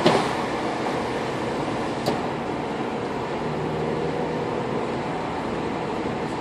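Steady road and engine noise of a car driving at city speed, heard from inside the cabin through a dashcam. A sharp knock sounds right at the start and a smaller click about two seconds in.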